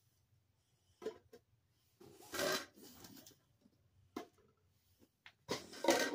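Red plastic party cups handled and stacked: a few light clicks as cups are set down, and two longer rustling scrapes of plastic against plastic, one about two seconds in and one near the end.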